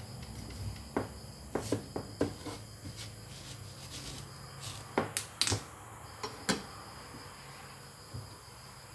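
Kitchen knife cutting watermelon slices on a thick wooden chopping block: a scattering of short, sharp knocks as the blade goes through the rind and strikes the wood, several clustered about five seconds in. A steady high, thin insect-like trill runs underneath.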